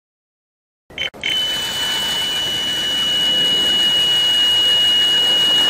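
Electronic carp bite alarm sounding one continuous high tone, starting about a second in just after a click, signalling a bite on the rod.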